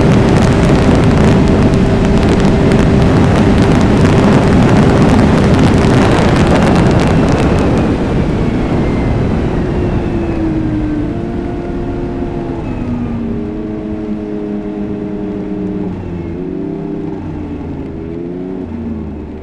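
Turbocharged 2022 Ski-Doo Mach Z snowmobile at full throttle on a top-speed run, its engine nearly buried under heavy wind rush. From about eight seconds in the rush fades as the throttle comes off and the sled slows, and the engine note steps down in pitch several times.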